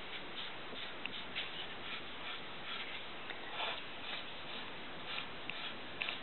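Yellow highlighter rubbing across paper in short colouring strokes, faint over a steady background hiss.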